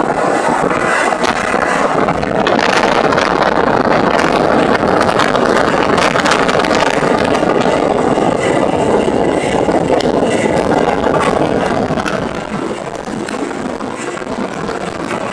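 1941 Chevrolet G7113 truck's straight-six petrol engine running at road speed under load, mixed with steady road and wind noise as the truck drives along. It eases off a little near the end.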